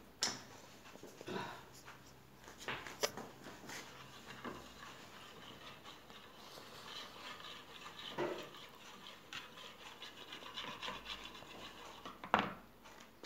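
Hand whisk beating crepe batter in a bowl: a faint, steady scraping with small clicks of the wires against the bowl, and a sharper knock near the end.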